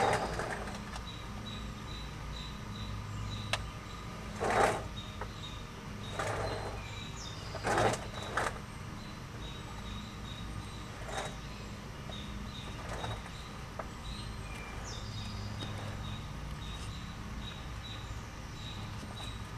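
Hands working a hose down into the engine block's oil-pump plug hole to prime the pump: a few brief scrapes and rustles about four, six and eight seconds in, over a steady low hum. Faint high chirps repeat throughout.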